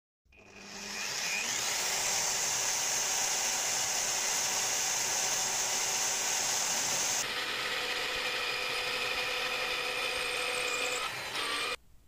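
Drill press running as its bit bores through a braided katana handle with a hornbeam wood core. The motor builds up over the first second or so, the high hiss drops away about seven seconds in, and it stops suddenly near the end.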